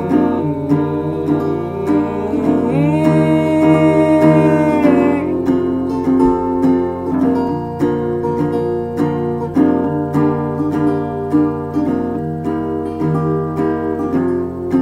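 Guitar strummed in a steady rhythm, chord after chord; a held sung note rides over it and ends about five seconds in, then the guitar plays on alone.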